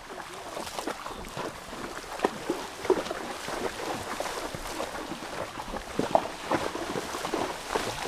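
Mule wading at a walk through a shallow creek, its hooves splashing and sloshing in the water in an irregular run of splashes, a few of them louder.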